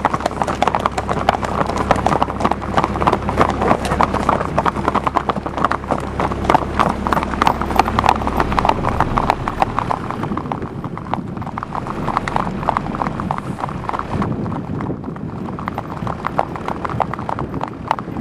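Many horses' hooves clip-clopping on an asphalt road as a group of horses walks together, the hoofbeats overlapping into a dense clatter that thins a little after about ten seconds.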